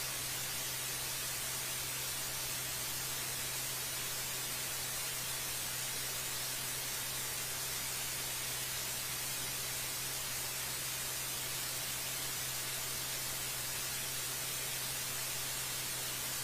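Steady, unchanging static hiss with a faint low hum underneath.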